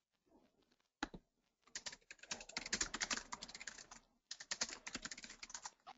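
Faint typing on a computer keyboard: a single key click about a second in, then two quick runs of key clicks separated by a short pause.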